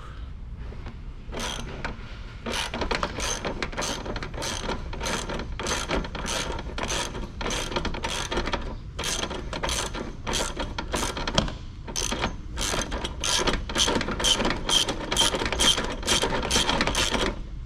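Hand ratchet wrench clicking in quick back-and-forth strokes, about two a second with a couple of short pauses, as a just-broken-loose exhaust downpipe bolt is run out.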